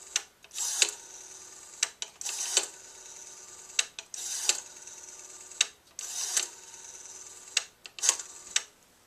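Rotary dial of a Western Electric 233G three-slot payphone being dialled. About five digits, roughly two seconds apart, each a burst of clicks as the dial is wound round and whirs back to rest.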